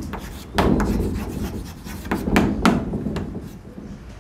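Chalk scratching and tapping on a blackboard in a series of short strokes as a word is written.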